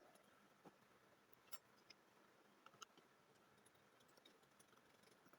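Near silence: faint room hiss with a few light, sparse clicks, the loudest about three seconds in.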